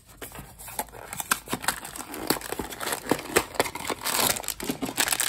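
Blind-box packaging being handled: a run of small clicks and rustles of cardboard, turning to denser crinkling of a foil wrapper near the end.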